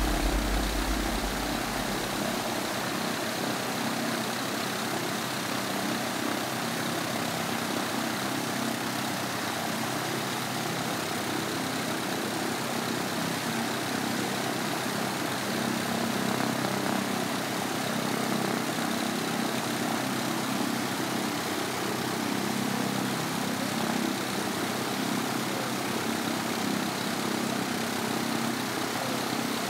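Piper PA-28-140's four-cylinder Lycoming engine and propeller running steadily on the ground.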